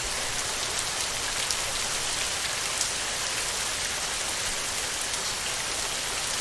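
Heavy rain falling on a tin roof: a steady, dense hiss scattered with sharp ticks of individual drops.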